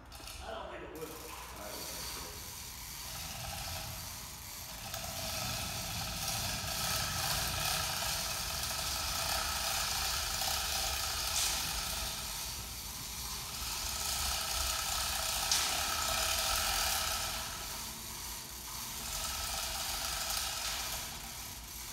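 Electric chain hoist running while it positions the suspended aluminum boat hull: a steady motor whine with a hissing rush that swells and eases a few times.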